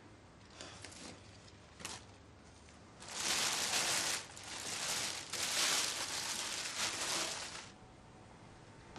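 Clear plastic wrapping crinkling as it is handled, in two or three long rustling stretches from about a third of the way in until near the end.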